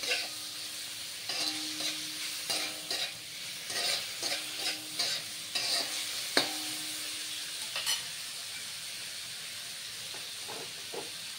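Metal spatula scraping and stirring pork and onion in a hot wok over a steady frying sizzle, in irregular strokes with one sharp clack about six seconds in. The stirring stops about eight seconds in, leaving only the sizzle.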